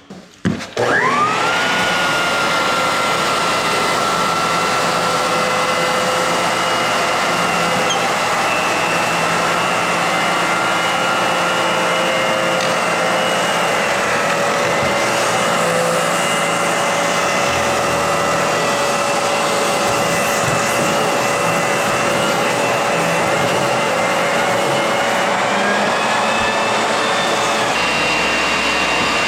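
Lagler Flip floor edger sanding along the edges of a pine floor with 120-grit paper. It spins up with a rising whine about a second in, then runs loud and steady.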